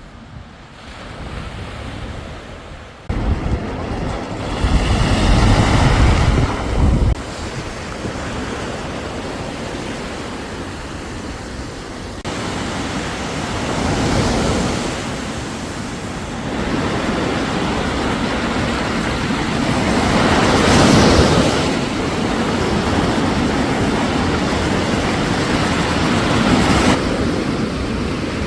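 Sea waves breaking and washing onto the beach, the surf swelling roughly every six to seven seconds. Wind buffets the microphone for a few seconds near the start, adding a low rumble.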